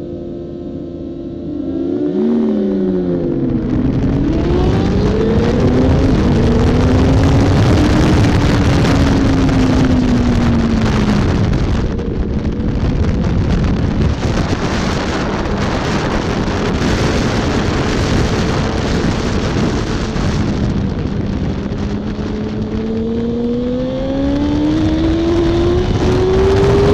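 2007 Yamaha R1's inline-four engine held at high revs on the race start, then launched about two seconds in: the revs dip as the clutch bites and climb again as the bike pulls away, under heavy wind rush. The engine note wanders lower through the middle and climbs steadily again under acceleration near the end.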